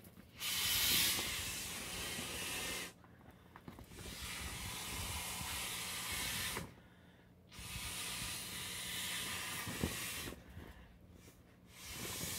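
Breath blown by mouth through the valve of an inflatable vinyl globe: long airy rushes of two to three seconds each, about four of them, broken by short pauses for breath.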